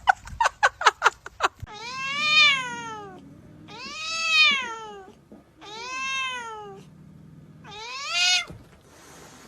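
A cat yowling four times, long drawn-out calls that each rise then fall in pitch: the warning yowls of a cat facing a rival cat. It opens with a quick run of sharp ticks.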